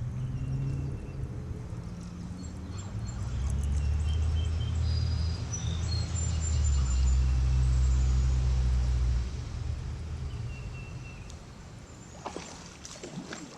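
A low rumble swells from about three seconds in and fades after about nine, while birds chirp in short high notes. Near the end come a few sharp knocks.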